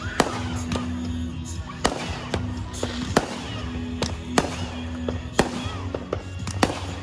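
Fireworks going off: about ten sharp bangs at irregular intervals, roughly one every half second to second, over music playing steadily underneath.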